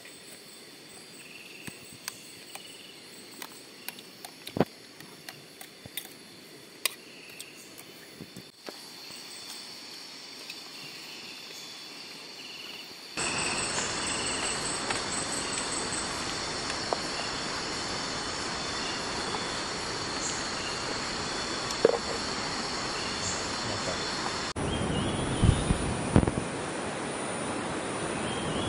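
Night-time rainforest insects chirring steadily in high thin tones, with scattered sharp clicks of spoons against enamel plates and a metal pot. The insect chorus gets louder about halfway through, and near the end it gives way to a lower, steady rushing noise.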